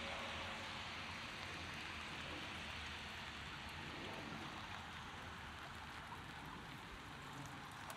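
Steady rain falling on the street, an even hiss that grows gradually quieter, with a few faint drip ticks near the end.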